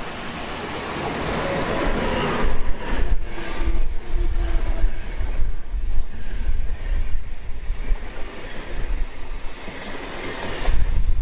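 Passenger train hauled by a MÁV class 480 (Bombardier TRAXX) electric locomotive running past along the platform. It rumbles with irregular wheel clacks over the rail joints, growing louder over the first couple of seconds as the locomotive comes level.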